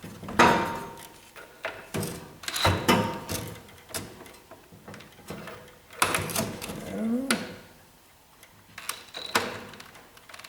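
Scattered metal clanks and knocks of tools and sockets being handled against a car's chassis, about ten separate hits. One early hit rings briefly.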